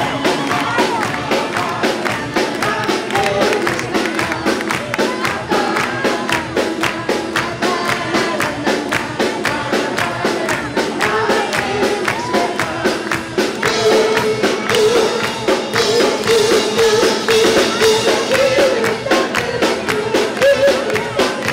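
Upbeat horah dance music with singing over a fast, steady beat, the melody growing stronger in the second half.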